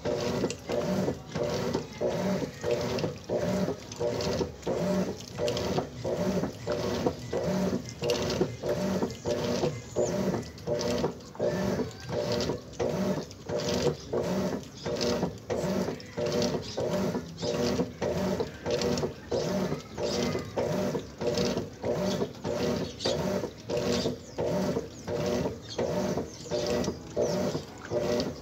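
Top-loading washing machine agitating a load of clothes in soapy water: the agitator swings back and forth in a steady rhythm, about one stroke every three-quarters of a second, each stroke a surge of motor noise and sloshing water.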